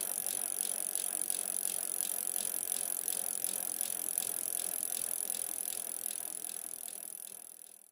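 Rapid, even ratchet-like clicking, about three to four clicks a second, over a steady hiss. It cuts in and out abruptly.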